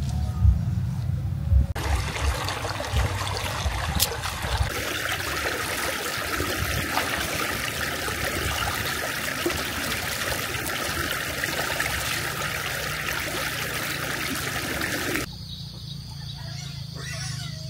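Running water, a steady rushing noise that starts about two seconds in and stops abruptly near the end, after a few dull low thumps at the start.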